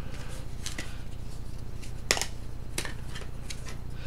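Thick cardboard game coasters and their punchboard frame being handled, giving a few light clicks and taps, over a steady low electrical hum.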